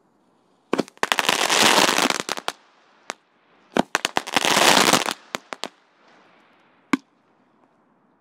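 Firecrackers going off inside a hollow carved pumpkin: two spells of rapid crackling pops about two seconds each, with a few sharp single bangs between and after them, the last one near the end.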